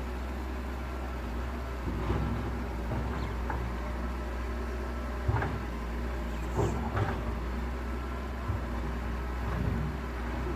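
Excavator's diesel engine running steadily at a low hum, with several short clunks and knocks from the machine at work.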